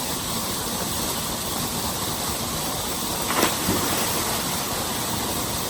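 Waterfall pouring: a steady, even rush of falling water, with one brief click a little past halfway through.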